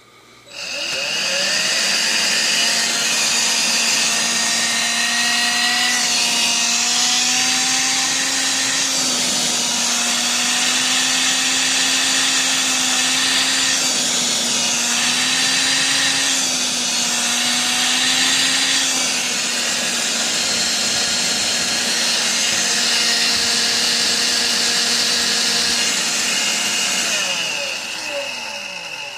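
Electrolux ZB3006 cordless stick vacuum running on its refilled 14.4 V battery pack. The motor spins up with a rising whine, runs steadily with a couple of slight dips in pitch, then winds down near the end.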